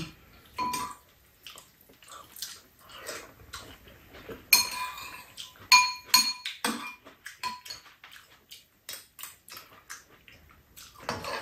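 Metal spoons and chopsticks clinking and scraping against bowls while eating, a scatter of sharp, briefly ringing clinks, the loudest about four and a half and six seconds in.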